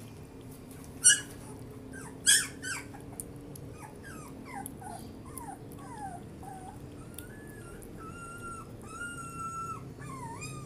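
Young puppy yelping sharply twice, then whimpering in a string of short falling whines and a few longer, steady whines: a hungry puppy crying while being bottle-fed.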